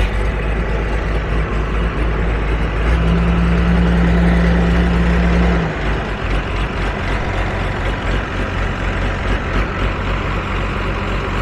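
Heavy engine running close by with a steady low hum, getting louder for a few seconds from about three seconds in, then settling back.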